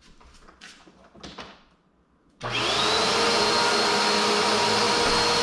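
Faint handling sounds, then about halfway through a Bissell upright vacuum cleaner switches on suddenly. Its motor spins up with a brief rising whine and then runs steadily and loudly.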